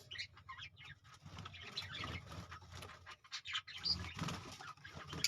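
Lovebirds chirping, with many short, scattered calls.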